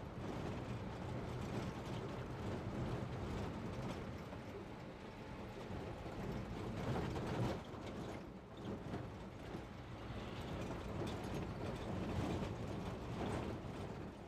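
Steaks sizzling on a grill grate over a wood fire, with irregular crackles and pops from the fire.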